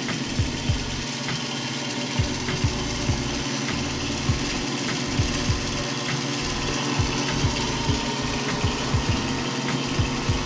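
Ryowa BS-200 band saw running with no load: its electric motor hums steadily while the belt-driven wheels carry the freshly fitted blade, with light, irregular knocks several times a second.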